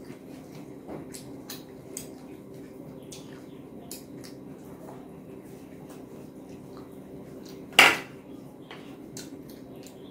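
Close-up eating sounds: fingers squishing rice and curry against a plate and chewing, with many small wet clicks. About eight seconds in there is one loud, sharp clatter of dishware.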